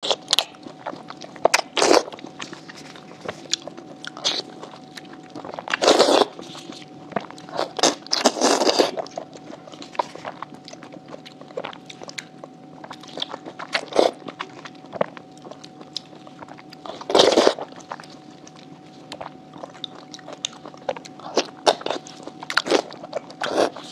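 Close-miked mouth sounds of eating skewered oysters in chili-oil broth: wet biting and chewing as the oysters are pulled off bamboo skewers, with many irregular sharp clicks. A few louder, longer bursts come about 6, 8 and 17 seconds in.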